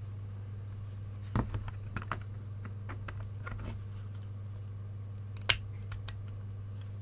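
Light metallic clicks and taps of a thin perforated metal shield being handled and clipped together, with one sharp click about five and a half seconds in.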